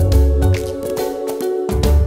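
Background music with a bass line and a regular drum beat.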